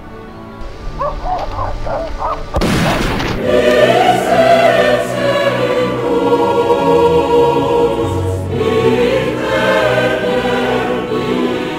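Dramatic choral music over sustained orchestral chords, the choir holding long notes that rise and fall. About two and a half seconds in, a single loud shotgun blast cuts through the music.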